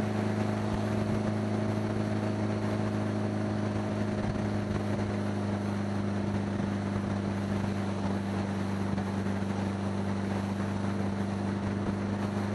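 1975 Honda Gold Wing's flat-four engine and exhaust running steadily at an even cruising speed, with wind noise on the helmet microphone over it.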